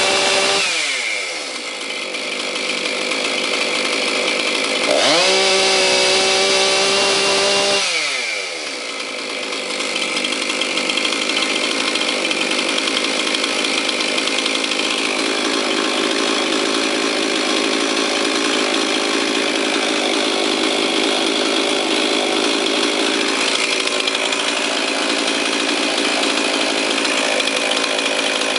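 Husqvarna 262XP 62cc two-stroke chainsaw revved at full throttle and dropping back to idle in the first second or two. It is revved again for about three seconds starting about five seconds in, then settles into a steady idle.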